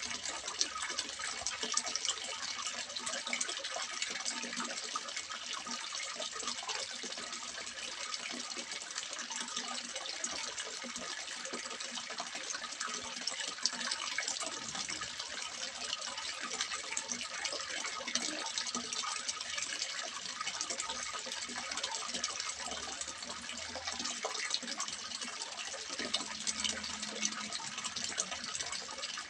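Water splashing steadily into a small fish pond, an even continuous patter.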